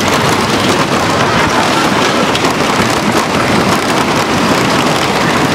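Train on the Grand National wooden roller coaster running at speed: a loud, steady rattle and clatter of wheels on the wooden track mixed with the rush of wind past the open car.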